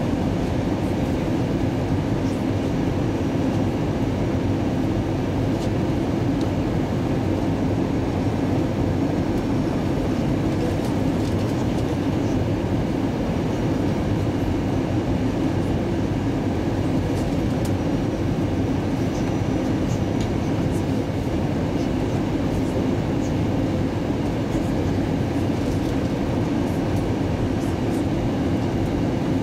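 Steady cabin noise inside an Airbus A320 descending on approach: an even rush of airflow and engine rumble, unchanging throughout and heaviest in the low range.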